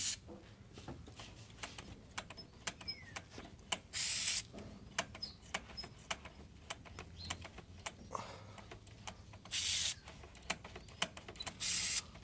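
Aerosol multi-purpose spray hissing in three short bursts onto the throttle linkages, lubricating them to free them up. Many small clicks and taps fall between the bursts.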